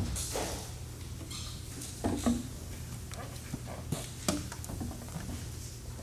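Hushed recital-hall room tone with a steady low hum, broken by a few soft knocks and rustles from the performers settling in before playing.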